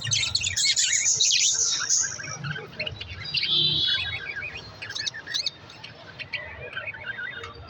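Pet budgerigars chirping and chattering in a dense run of quick chirps, busiest in the first few seconds and quieter after about four seconds.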